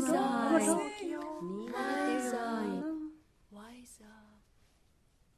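High voices singing wordlessly a cappella, several pitches gliding and overlapping, fading out about three seconds in; a short sung note follows, then near silence.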